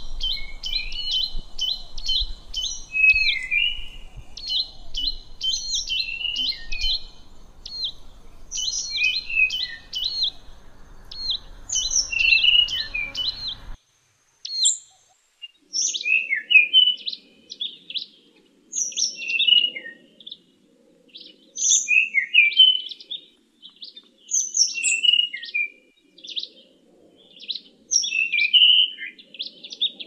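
Songbirds singing: dense, fast, repeated high chirping phrases for about the first fourteen seconds, then an abrupt switch to a different recording of more varied whistled and chirped phrases separated by short pauses.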